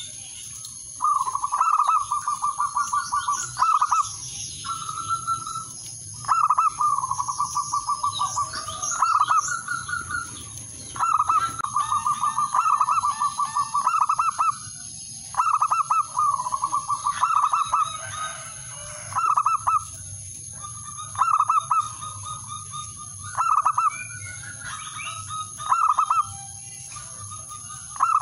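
Male zebra dove (perkutut) cooing its territorial song to call out rival males: trains of rapid staccato coos, each a second or a few seconds long, repeated every few seconds. A steady high-pitched hiss runs underneath.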